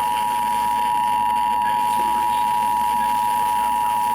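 Emergency Alert System two-tone attention signal (853 and 960 Hz together) over a radio, a loud steady tone with faint receiver hiss beneath it. It announces an emergency alert, here a severe thunderstorm warning.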